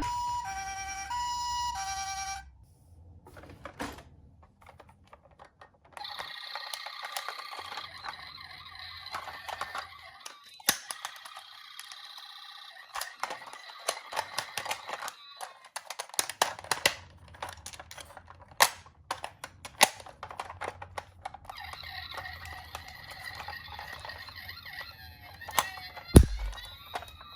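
A toy ambulance's electronic siren, opening with a hi-lo two-tone alternation. Then quieter steady siren tones mixed with many sharp plastic clicks and clatter, and a louder knock near the end.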